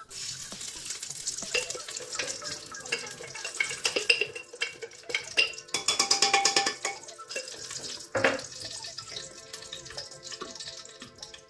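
A spatula scraping and knocking spoonfuls of ghee into an aluminium pressure cooker, the ghee melting in the hot pan; cooking oil is poured in from a bottle near the end.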